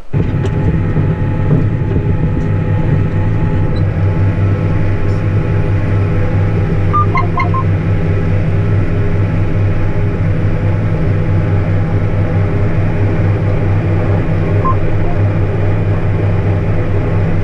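Tractor's diesel engine running steadily under load, heard from inside the cab as a constant low drone. A few brief, faint tones sound about seven seconds in and once more near the end.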